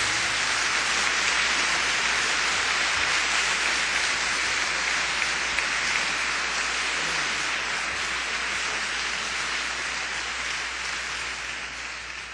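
A crowd applauding steadily, fading out near the end.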